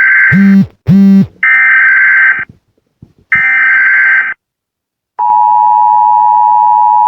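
Emergency Alert System tones: three roughly one-second bursts of the screeching digital header data, with two short buzzes between the first and second bursts. About five seconds in, the steady two-tone attention signal begins and holds for about two seconds.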